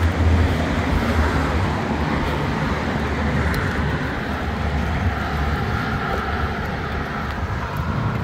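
Victory Magnum's V-twin engine idling steadily in neutral, with an even background hiss.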